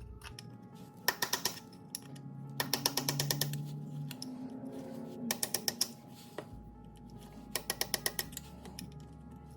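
Ratchet wrench clicking in four short, rapid bursts, each a handful of quick clicks, as it is worked back and forth on a broken bolt.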